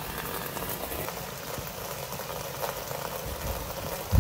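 Thin stream of water from a stone fountain's spout splattering steadily onto a metal drain grate. A short, loud, low rumble comes right at the end.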